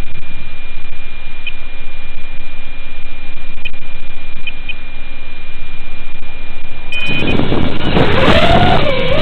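Loud steady hiss with a thin steady high tone from a 4S FPV quadcopter's analog video-link audio. About seven seconds in, the quadcopter's motors spin up for takeoff: a whine that rises and wavers in pitch with the throttle.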